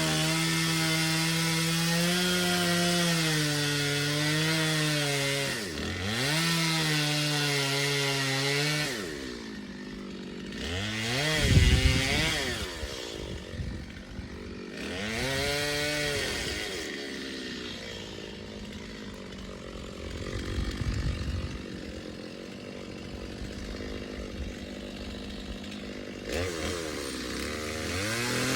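Two-stroke chainsaw running at high revs under steady load, cutting into a dead tree, with a brief drop in revs about six seconds in. It is then revved up and down several times, idles for several seconds, and revs up again near the end.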